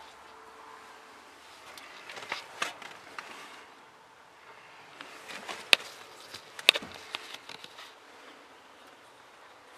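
Scattered footsteps and rustling in grass with handling noise, including two sharp clicks about a second apart past the middle; the tractor's engine is not running.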